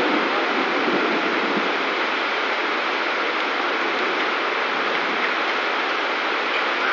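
Heavy downpour: a steady hiss of rain and running water, with cars splashing through the flooded street.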